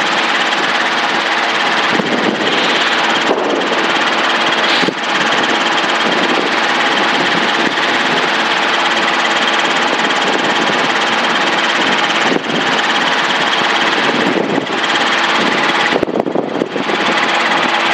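Training helicopter's piston engine and rotor running steadily under climb power.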